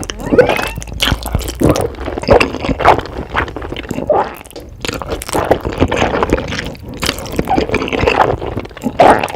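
Close-miked mukbang eating sounds: wet chewing and slurping, a dense run of quick smacks and clicks from the mouth.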